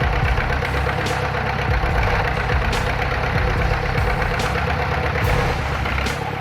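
A heavy machine's engine running steadily with a low rumble and a faint steady whine over it. A few short sharp clicks come through the engine sound.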